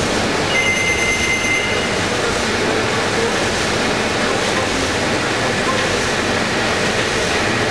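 Industrial web-fed plastic-film converting machine running: a steady, dense mechanical noise from its rollers and drives, with faint thin high whines for a second or so near the start.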